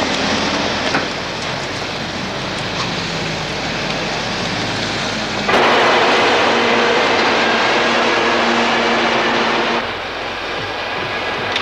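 Railway station noise: a steady rumble of trains and vehicles, which grows louder a little past the middle, with a steady whine in it, and drops back about four seconds later.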